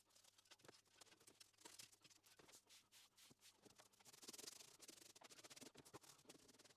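Faint, rapid scratching and clicking of stainless steel swarf being brushed and scraped off a milling machine table.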